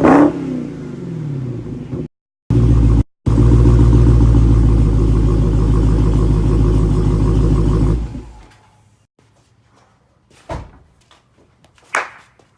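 Dodge Hellcat's supercharged V8 revving, then running loud and steady with a deep low note, and dying away about eight seconds in. The sound cuts out completely twice for a moment early on, and two sharp knocks follow near the end.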